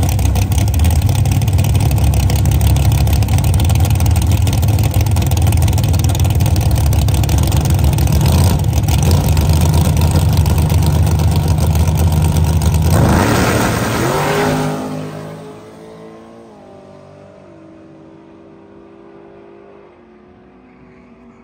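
Drag race car engine running very loud and steady at high revs, then revving sharply higher about thirteen seconds in. It then fades as the car pulls away down the strip, its note climbing and dropping back in steps at each gear change.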